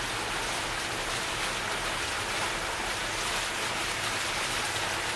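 Small fountain jets splashing steadily into a shallow pool.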